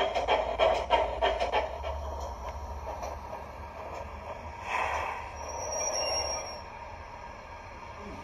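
Digital steam sound from a Zimo MX644C decoder with a Prairie sound file, playing through the factory-fitted speaker of an O gauge GWR 45XX Prairie model locomotive: exhaust chuffs at about four a second stop about one and a half seconds in as the loco comes to a stand. A short hiss-like burst follows near five seconds, then a faint high tone for about a second.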